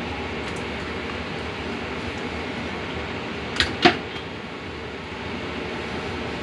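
Kitchen knife working a chub mackerel on a wooden cutting board, with two sharp knocks of the blade on the board about three and a half seconds in, over a steady background noise.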